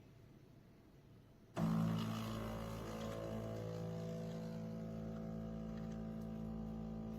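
De'Longhi Rivelia automatic espresso machine starting up about a second and a half in and running with a steady mechanical hum as it grinds and brews a shot.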